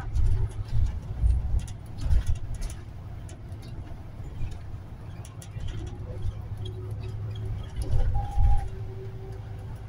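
City bus driving along a street, heard from inside at the front: a steady low engine and road rumble with heavier low surges near the start, about two seconds in and about eight seconds in. A faint steady whine comes in from about six seconds.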